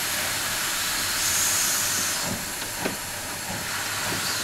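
Steady steam hiss from a two-foot-gauge SAR Ng15 steam locomotive, with a louder, higher burst of hiss about a second in and a few light knocks near the middle, as the engine loses grip on wet, slippery rails and slides backwards.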